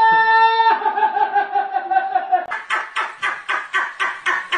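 A person's exaggerated laugh: a long high-pitched held note that slowly sags in pitch, then rapid rhythmic laughing pulses at about four a second.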